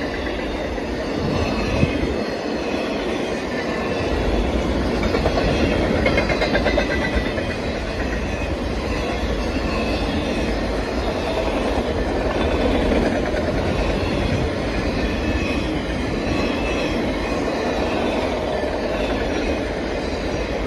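Freight train of autorack cars rolling past: a steady rumble of steel wheels on rail, with faint high-pitched squealing from the wheels.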